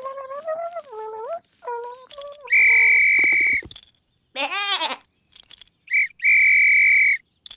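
A cartoon lamb's wavering bleat, then a metal whistle blown in two long, steady, shrill blasts with a short toot just before the second. Between the blasts comes a short rising-and-falling call.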